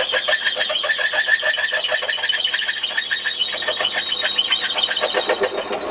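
An 18 mm twist drill in the tailstock of a Warco WM180 lathe cutting into a spinning workpiece. The lathe runs with a fast, even pulse of chatter and a high ringing tone over it, which eases and changes near the end.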